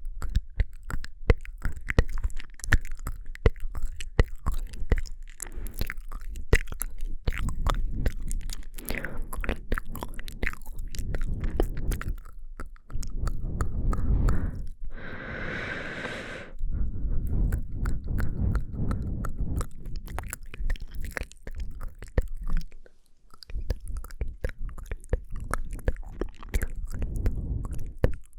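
Close-miked ASMR mouth sounds: a dense run of wet lip and tongue clicks and smacks, with a breathy hiss about fifteen seconds in.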